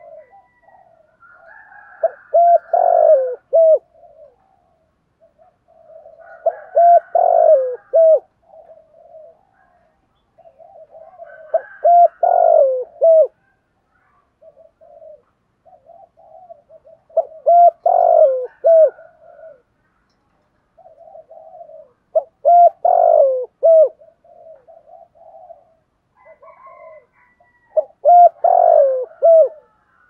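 Spotted dove cooing: a short phrase of a few low coos, repeated six times about every five seconds, with softer coos in between. This is the territorial cooing of a caged decoy dove.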